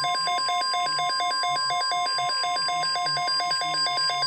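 NOAA Weather Radio 1050 Hz warning alert tone playing steadily through the Midland WR-100 weather radio's speaker, with a rapid, evenly repeating beep pattern layered over it. It is the alarm that precedes a broadcast watch or warning, here a tornado watch.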